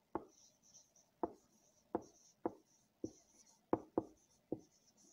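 Marker pen writing a word on a whiteboard: about nine sharp, irregular taps as the tip meets the board, with short faint squeaks of the strokes between them.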